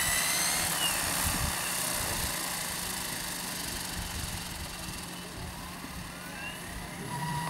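Align T-Rex 600 radio-controlled helicopter with its rotor turning close to the ground: a steady whir from the blades, with a thin high whine from the drive whose pitch glides upward near the end.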